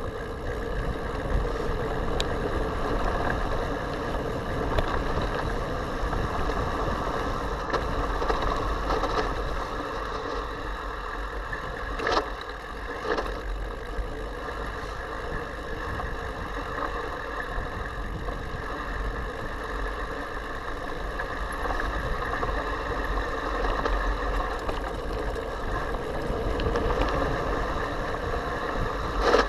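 Wind rushing over an action camera's microphone and mountain bike tyres rolling on a dirt fire road, a steady rumbling noise, with a couple of sharp knocks about halfway through.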